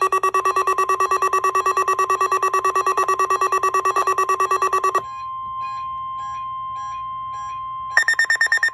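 Weather radio alert sounding for a NOAA Weather Radio weekly test. A fast-pulsing electronic beep plays for about five seconds. It changes to a steady 1050 Hz warning alarm tone with a fainter, slower beep over it, and the fast-pulsing beep returns near the end.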